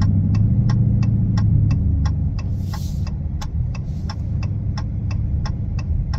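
Cabin sound of a 2022 Dodge Challenger R/T's 5.7-litre HEMI V8 breathing through Dynomax Race Bullet resonators in place of the stock mufflers, with the factory resonators deleted: a deep rumble easing off slightly as the car slows. A turn signal ticks steadily over it, about three ticks a second.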